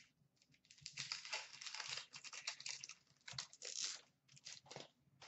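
A hockey card pack's wrapper crinkling and tearing as it is opened by hand: dense rustling for about three seconds, then a few short crinkles near the end.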